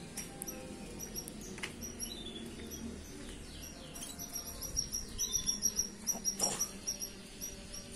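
Young canaries singing in an aviary: rapid high-pitched chirps and trills, at the stage where four-month-old birds are just starting to sing. The song gets busier and louder in the second half, with quick repeated notes.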